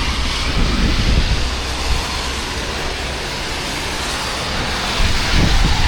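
Heavy rain falling, a dense steady hiss, with wind buffeting the microphone in low rumbling gusts.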